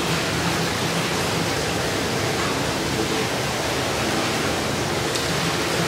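Hot tub water rushing steadily, an even hiss with a faint low hum beneath it.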